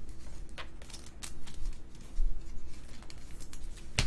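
Topps WWE trading cards being flipped and slid past one another in the hands: a series of short card flicks and swishes, with a sharper click near the end.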